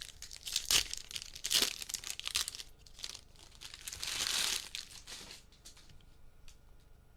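Foil trading-card pack wrappers crinkling and being torn open, with a longer tearing rustle about four seconds in. It goes quiet after about five and a half seconds.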